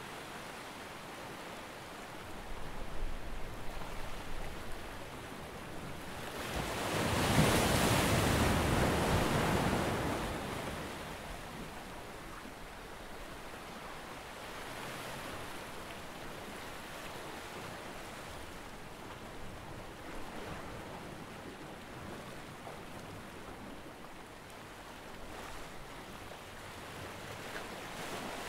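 Shallow water lapping against a stone wall, with wind on the microphone. About a quarter of the way in, a louder whooshing rush swells up for a few seconds and dies away.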